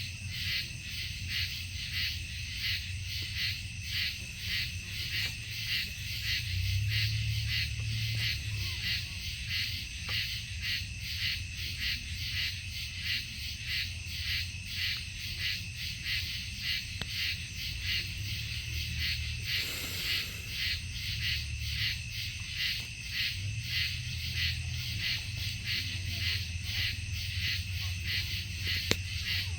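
Night insect chorus, crickets or katydids chirping in a steady rhythmic pulse, over a low steady hum.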